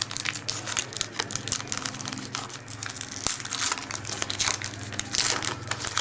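Trading card pack wrapper crinkling and crackling as it is torn open and handled, with irregular clicks and rustles.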